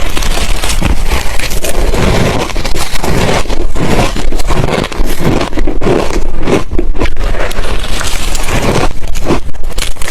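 Ice being bitten and chewed close to the microphone: loud, dense, irregular crunching with no pauses.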